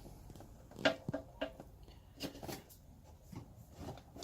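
Faint handling noises: a few soft clicks and rustles, clustered about a second in and again later, with quiet room tone between.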